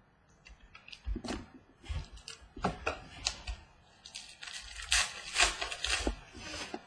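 Trading cards and their packaging being handled: irregular clicks and crinkling, busiest from about four and a half to six and a half seconds in.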